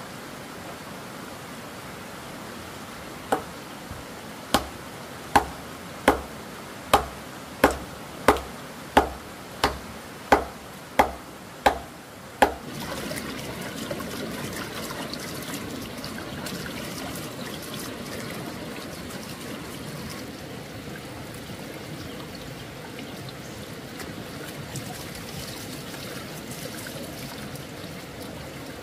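About a dozen sharp chopping strokes, a little under one a second, each with a dull thud, then a steady trickle of running water.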